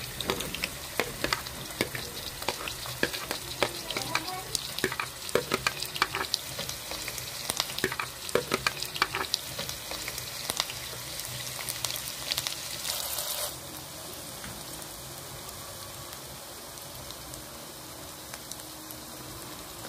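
Chopped red onions sizzling in hot oil in a metal pot, with a spoon stirring and clicking against the pot. About 13 seconds in the stirring stops and only a quieter, steady sizzle goes on.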